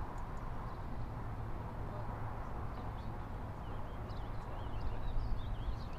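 Steady low outdoor rumble, with small birds chirping in short, wavering notes through the second half.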